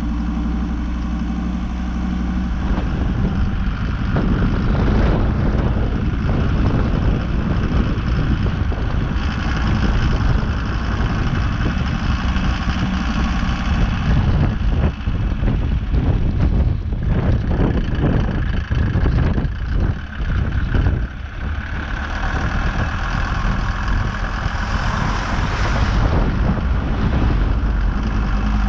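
ARO 4x4 off-road vehicle's engine running, steady at first, then louder and rougher from about three seconds in as the vehicle drives, with frequent knocks and rattles through the middle that thin out around twenty-two seconds in.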